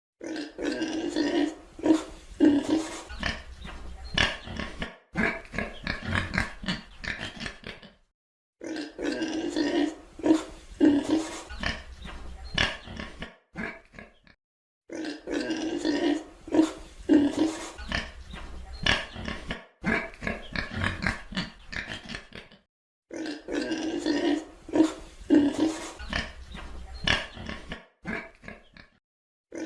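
Pig grunting and oinking in quick runs of short calls. The same few seconds of pig sound repeat about every seven seconds, each run ending in a brief silence.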